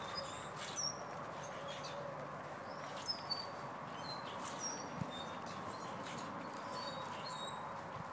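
Small songbirds chirping, many short high calls scattered through, over steady outdoor background noise with a few soft knocks.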